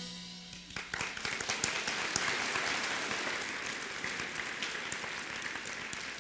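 Audience applauding, starting about a second in after the song's last note dies away, then slowly thinning out.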